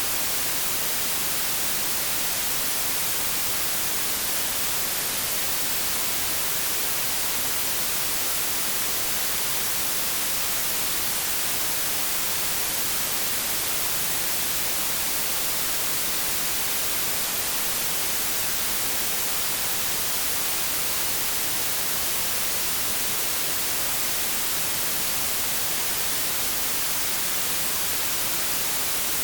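Steady white noise: an even, unbroken hiss, strongest in the highs, with no changes.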